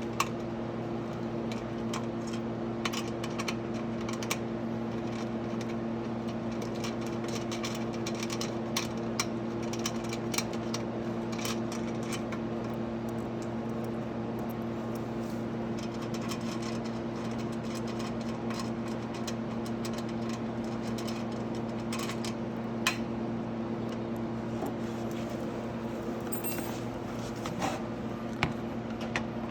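Scattered light clicks and taps of an Allen key working bolts out of the dirt bike's plastic body panels, over a steady low hum.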